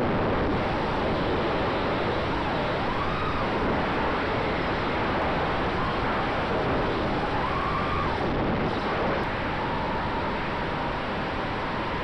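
Onboard audio from a RunCam Split Mini's built-in microphone on a 5-inch FPV racing quadcopter in flight: a loud, even rush of propeller wash and wind on the microphone, with the motors' faint whine gliding up and down as the throttle changes.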